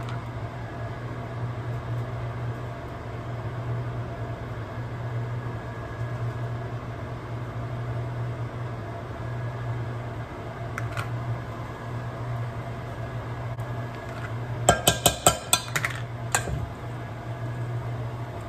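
A metal spoon knocks five or six times in quick succession against a stainless steel mixing bowl near the end, as scooped baked potato is shaken off into it. A steady low hum runs underneath.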